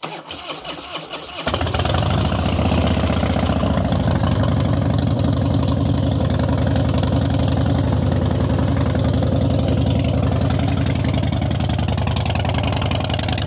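2004 Harley-Davidson Softail Deuce's Twin Cam 88B V-twin turning over on the electric starter, catching about a second and a half in and settling into a steady idle through a new Vance & Hines Big Radius 2-into-2 exhaust. The engine is running with a new S&S air cleaner and is not yet tuned for the new intake and exhaust.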